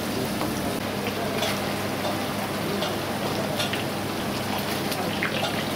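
Rice-cracker discs deep-frying in a wok of hot oil: a steady sizzle and bubbling with scattered crackles. A steady low hum runs underneath.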